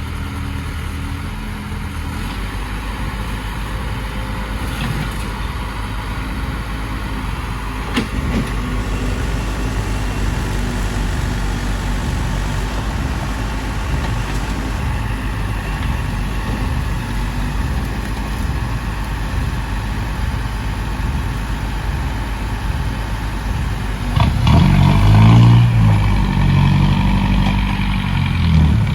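Heavy diesel engine running steadily, then revving up louder for a few seconds near the end before settling back.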